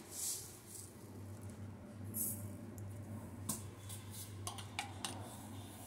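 Mustard seeds poured from a teaspoon into a stainless steel mixer-grinder jar, rattling on the steel in a few short showers, with several light clicks in the second half.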